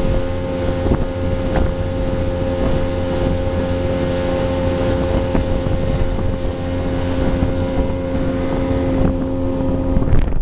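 Motorboat engine running steadily at speed, with rushing water and wind buffeting the microphone.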